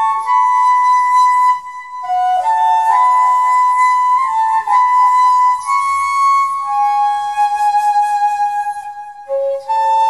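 Background music: a flute playing a slow melody of long held notes.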